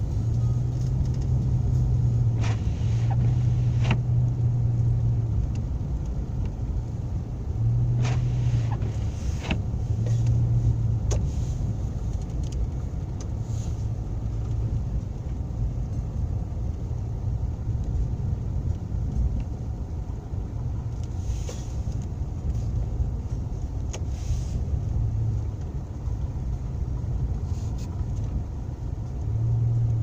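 Car driving on an unplowed snow-covered road, heard from inside the cabin: a steady low rumble of engine and tyres, with a low hum that comes and goes and scattered brief knocks and bumps.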